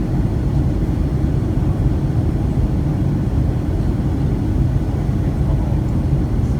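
Steady low rumble of a Boeing 757-200 airliner heard from inside the passenger cabin, even throughout with no distinct events.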